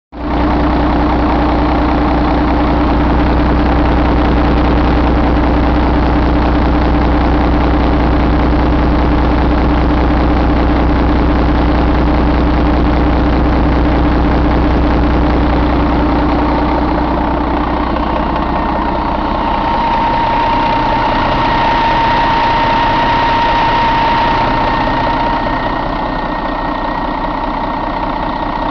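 Mercedes-Benz MBE4000 inline-six diesel engine idling steadily, heard up close in the engine bay. A steady higher whine stands out over the low rumble in the second half.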